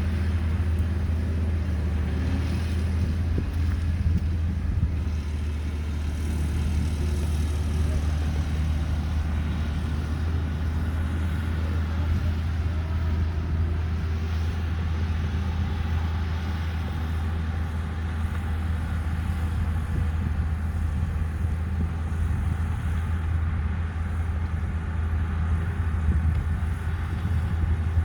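Caterpillar 312B excavator's diesel engine running with a steady low drone.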